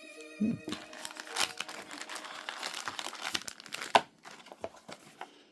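Crinkling and rustling of foil-wrapped trading card packs being handled and taken out of a box, with irregular sharper crackles, the loudest about four seconds in.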